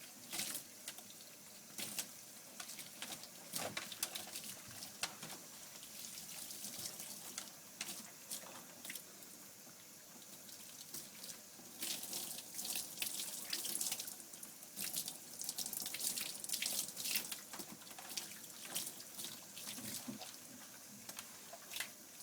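Water running from a bath spray hose and splashing onto a dog's coat, rinsing out the first shampoo wash. It spatters unevenly throughout and gets heavier about halfway through.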